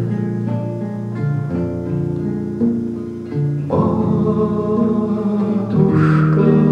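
Acoustic guitar played under a man's singing voice in a bard song, the chord changing about every two seconds.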